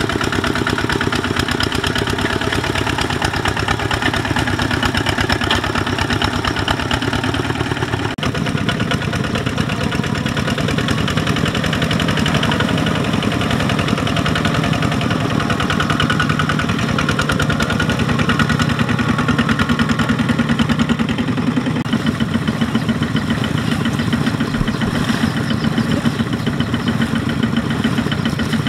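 Kubota RT140 power tiller's single-cylinder diesel engine running steadily under load as it pulls a trailer of rice sacks through mud. The sound shifts abruptly about eight seconds in, then continues at a similar level.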